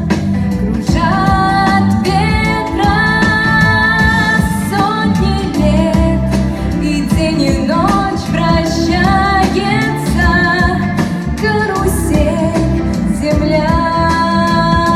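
A woman singing a slow, melodic song over instrumental accompaniment, holding long notes.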